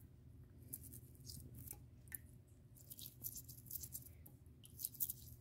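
Toothbrush bristles scrubbing toothpaste off a Baltic amber pendant: faint, irregular scratchy brushing strokes.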